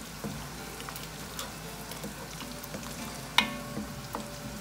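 Thick tomato and pepper sauce sizzling in a pot as it is stirred with a spoon, with small scrapes and clicks. A little over three seconds in the spoon knocks sharply against the pot, which rings briefly.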